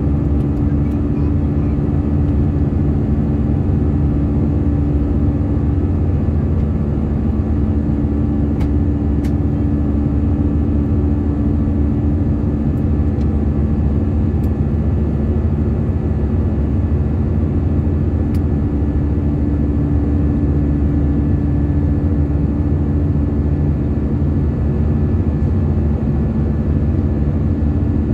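Steady cabin noise inside an Airbus A319 airliner in flight: the CFM56 jet engines and airflow over the fuselage make a constant low roar with a few steady droning hums, and a couple of faint clicks.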